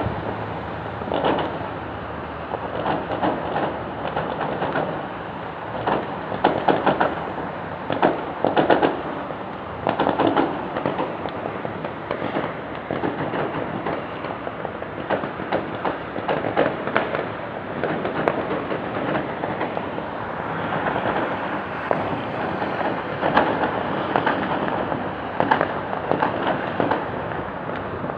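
Fireworks going off, with many sharp bangs and a continuous crackle in quick, irregular succession. The sound is dull-topped because it is recorded through an old phone's microphone.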